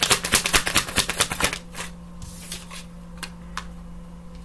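Tarot cards being shuffled by hand: a fast run of papery card flicks for about a second and a half, then a few single taps as cards are handled.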